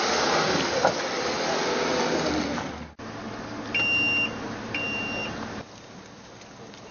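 A car's engine and road noise as it moves off. This cuts abruptly, then two short electronic beeps sound about a second apart.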